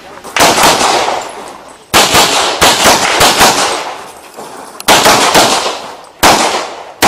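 Handgun shots fired in quick strings, each crack trailing off in echo: one shot just after the start, a rapid run of several about two seconds in, then more shots later in pairs.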